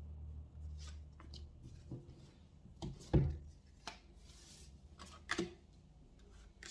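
Tarot cards handled on a tabletop: a series of short taps and slaps as a deck is squared and cards are set down, the loudest about three seconds in, with a brief rustle of cards sliding around four seconds in. A low hum runs underneath.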